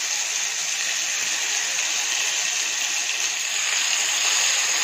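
Yogurt-marinated chicken pieces sizzling in hot oil in a frying pan on high heat: a steady hiss that grows a little brighter about three seconds in, as more pieces go into the pan.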